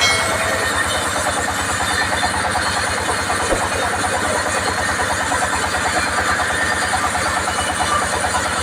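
Band sawmill running, a steady engine-like drone with a fast, even low pulse.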